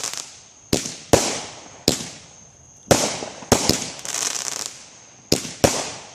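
Consumer aerial fireworks bursting overhead: about eight sharp bangs at uneven intervals, each trailing off in a crackling hiss.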